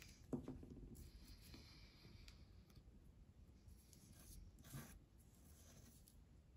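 Near silence, with faint soft sounds of small die-cut cardstock letters being handled and pressed together.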